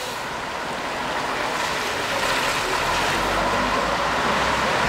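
Diesel trucks on a wet road: the Scania 110 Super tractor pulling away with a container trailer, a rush of engine and tyre spray that grows steadily louder, with a second truck's engine coming in under it from about halfway through.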